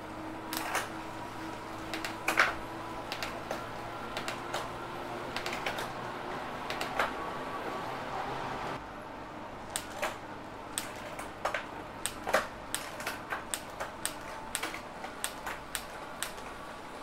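Road bike drivetrain running on a LeMond Revolution direct-drive trainer, with a steady whir from the trainer and chain and sharp clicks of gear shifts as the chain steps across an 11-speed Shimano cassette on a converted 10-speed freehub. A little past halfway the steady whir drops out and the shift clicks come about one or two a second.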